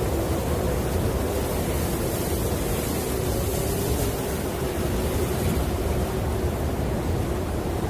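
Snowstorm wind blowing steadily: a continuous rushing noise with a low howl that wavers slightly in pitch.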